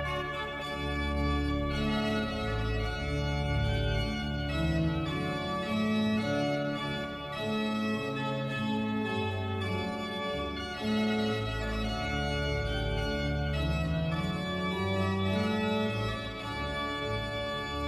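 Instrumental music playing closing music: held chords over a bass line that steps from note to note.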